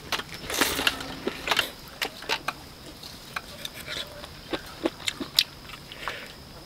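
Close-up eating sounds: a person pulling grilled meat off bamboo skewers with the teeth and chewing, heard as a string of irregular short clicks and smacks.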